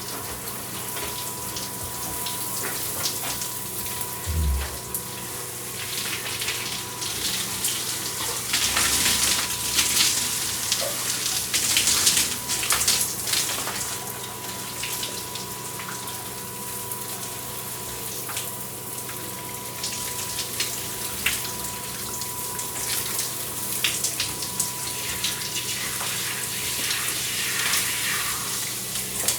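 Electric shower running, its water spray hissing steadily and swelling and falling as it breaks over someone showering, loudest about eight to thirteen seconds in. A faint steady hum runs underneath, and there is a brief low thud about four seconds in.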